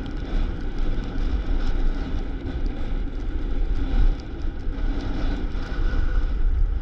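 Wind buffeting a body-worn camera's microphone during a downhill run on a groomed ski slope: a steady, loud rumble with a hiss of sliding on packed snow.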